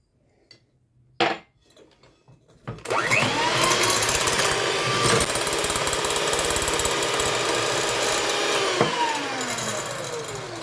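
A knock about a second in, then an electric mixer starts and beats eggs with sugar for a cake batter. Its motor rises in pitch as it spins up, runs steadily, and falls in pitch as it slows down near the end.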